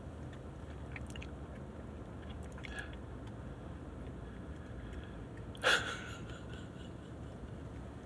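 A young child chewing and biting a small snack, with faint wet mouth clicks, over the steady low drone of a car cabin. A brief, louder sound breaks in about five and a half seconds in.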